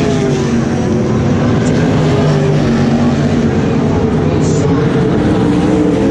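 LS1 V8 sprint car engines racing, several at once, their engine notes rising and falling as they lap. One car passes close about when the sound begins.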